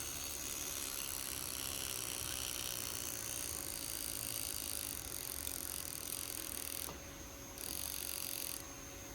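Flip Face Talking Thomas toy train's small electric motor and plastic gearbox running with a steady whir. It is noisy and slow because of a cracked gear.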